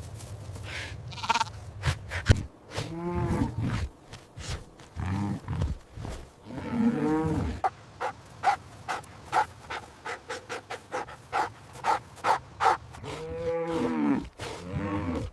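Farm animals calling: four drawn-out pitched calls, each about a second long, with a run of sharp clicks between the second half of the calls.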